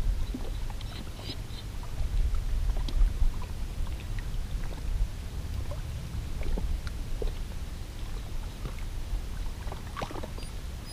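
Wind buffeting the microphone as a low, gusting rumble, with small waves lapping against the rocky lakeshore and a few faint scattered clicks.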